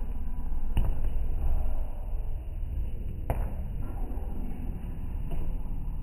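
A few sharp knocks, spaced about two and a half seconds apart, over a steady low rumble.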